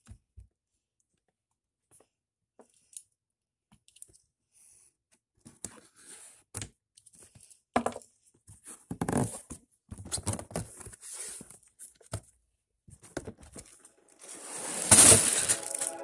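Lego set packaging being handled and torn open: scattered small clicks and rustles, growing busier about halfway through, with one loud tear near the end.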